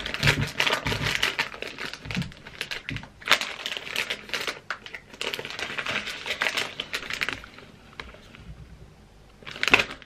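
Plastic snack bag crinkling as it is handled and a hand reaches in, a dense run of crackles that dies down about seven seconds in.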